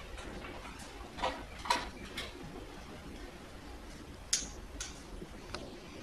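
Scattered sharp clicks and light knocks from Fetch mobile manipulator robots handling small objects and moving their arms, about six in all, with the loudest a little past four seconds in. A steady low hum of room and machine noise runs underneath.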